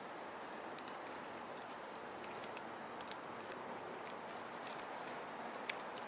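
Cats chewing dry kibble from a plate, a scatter of small crisp clicks and crunches over a steady background hiss, with one sharper click near the end.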